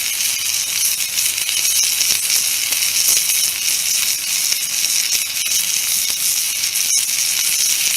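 Burger patty sizzling in a mess-kit frying pan: a steady, dense crackling hiss, with one sharp click about seven seconds in.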